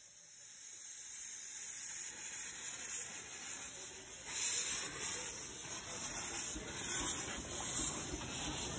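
Miniature steam locomotive venting steam from its open cylinder drain cocks: a steady, noisy hiss that swells over the first couple of seconds.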